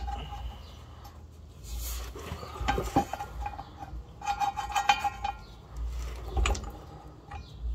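Steel nuts, bolts and the drive shaft flange clinking and knocking against each other in a few short clusters, with a brief metallic ring, as bolts are worked through the drive shaft's rubber flex disc (guibo) at the differential.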